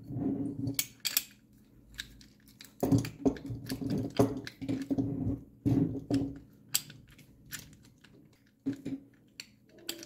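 Steel sections of a folding bike lock clacking and knocking against each other in irregular clicks as it is handled and folded. With the plastic cover removed, the joints move loosely.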